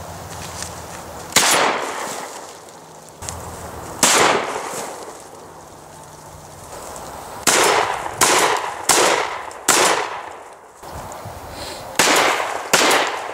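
Franchi SPAS-12 12-gauge shotgun firing eight shots, each echoing briefly. Two single shots a few seconds apart are followed by a quick string of four about two-thirds of a second apart, then two more near the end.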